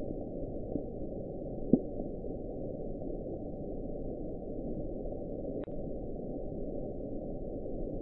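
The Bloop, the NOAA underwater hydrophone recording from the Pacific Ocean in 1997: a steady low rumbling hiss with a short rising chirp just under two seconds in.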